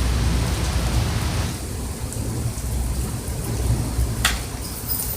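Heavy rain pouring down: a dense hiss that eases somewhat after about a second and a half, over a steady low rumble. A single sharp click about four seconds in.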